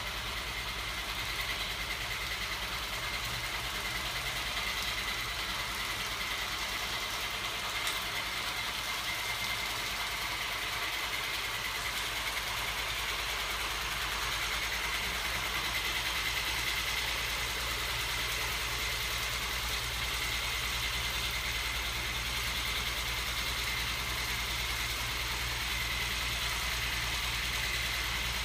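Battery-powered homemade magnet crankshaft machine running, its small 12 V electric motor and spinning parts giving a steady high whine over a low hum.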